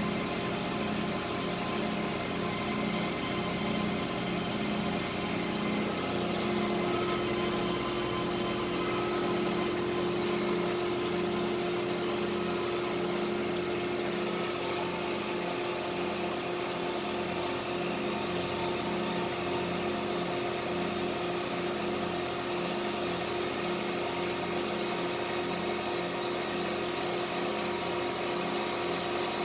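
WindyNation 8-inch electric linear actuators running with a steady motor whir as they lower the jet boat's motor hatch and raise it again.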